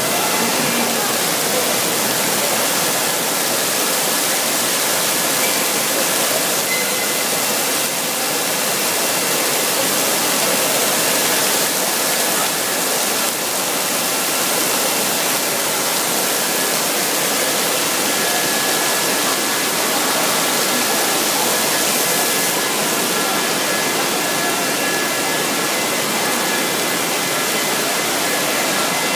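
Torrential rain pouring through a leaking train-station roof and cascading in sheets onto a flooded platform: a steady, dense rush of falling water.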